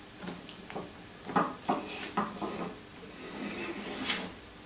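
An illustrated picture card being slid out of a wooden kamishibai theatre frame: a series of light knocks and scrapes of card against wood, then a longer rub near the end.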